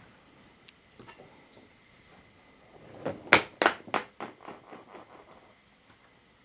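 A spoon clinking against a cup while ingredients are mixed: a few faint taps, then about three seconds in a handful of sharp ringing clinks followed by a quick run of lighter taps that fade away.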